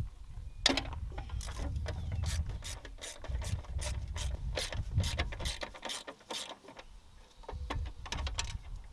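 Socket ratchet wrench clicking in quick runs as a fastener is turned, with a pause of about a second and a half late on before the clicking resumes, over a low steady rumble.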